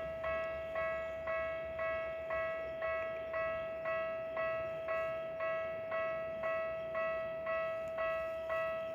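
Japanese railway level-crossing alarm ringing: an electronic crossing bell striking evenly about twice a second over a steady tone. It signals that a train is approaching the crossing.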